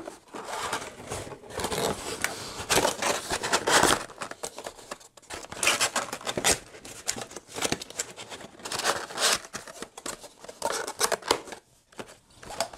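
Cardboard router box and its folded cardboard insert being handled: irregular scraping and rustling of cardboard against cardboard.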